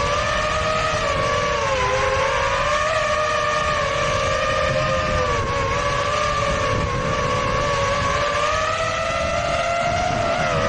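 FPV quadcopter's electric motors and propellers whining, the pitch drifting up and down with throttle changes, with a low rumble underneath.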